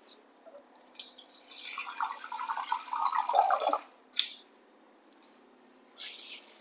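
Water being poured for about three seconds, with a short knock after it. Near the end, water is poured from a glass into curry in a kadai.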